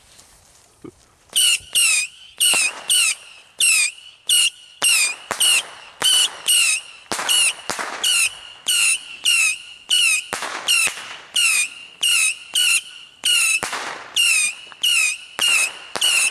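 A small firework going off in a rapid series of short whistling bursts, about two a second, each a quick falling shriek with a crackle. It starts about a second and a half in.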